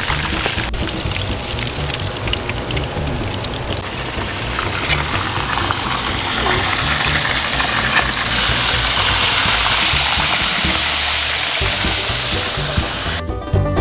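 Whole mojarra fish deep-frying in melted pig fat, a steady crackling sizzle over background music. Near the end the sizzle stops and banjo music takes over.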